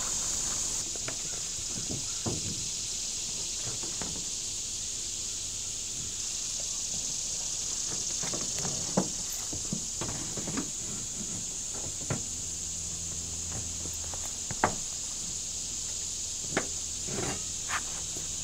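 Steady high-pitched insect chorus, with scattered footsteps and a few sharp knocks on plywood roof sheathing as a man walks and works on the roof.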